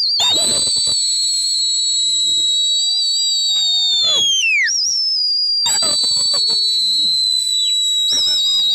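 Shrill whistle blown in two long blasts of several seconds each, each sliding down in pitch as it ends, with a warbling trill near the end.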